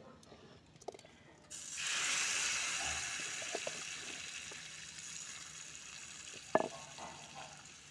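A tadka of hot oil with garlic and black peppercorns poured onto cooked moong dal, bursting into a loud sizzle about a second and a half in that slowly dies down. A single sharp knock near the end.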